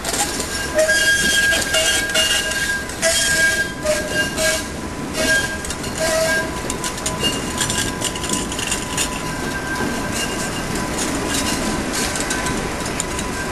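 Tatra T5C5 tram running through a curve close by, its wheels squealing on and off over the first half and clattering over the rails and points. A faint steady whine sounds throughout.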